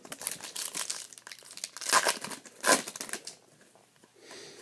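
Wrapper of a Panini Prizm hockey card pack crinkling and tearing as it is handled and opened, in a run of sharp rustles for about three seconds, the loudest two near the middle.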